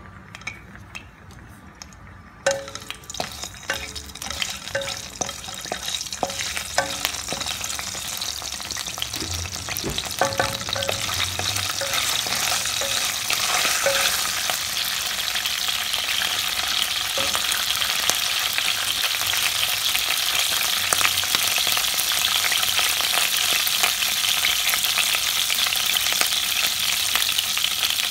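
Whole spices (bay leaves, fennel seeds, cinnamon) frying in hot oil in a nonstick pan, stirred with a wooden spatula. The sound begins as scattered crackles and grows into a steady, dense sizzle over the first dozen seconds as the oil heats and the spices start to fry.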